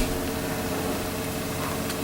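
Steady mechanical room hum with an even hiss and a faint click near the end.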